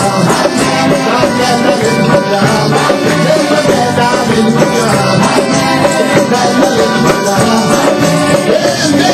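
Church worship music, with voices singing over the accompaniment.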